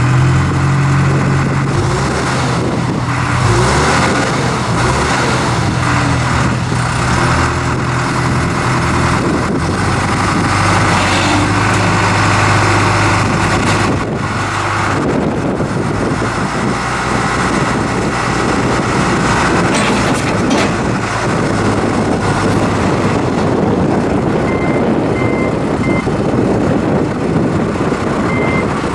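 A John Deere 310SG backhoe's four-cylinder turbo diesel runs throughout, its engine speed stepping up and down. Near the end a backup alarm beeps in short, evenly spaced beeps.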